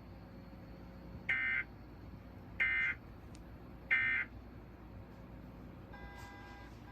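Emergency Alert System end-of-message (EOM) data bursts: three short, identical bursts of warbling digital data tones, about a second apart, marking the end of the alert. Near the end a chord of steady tones begins.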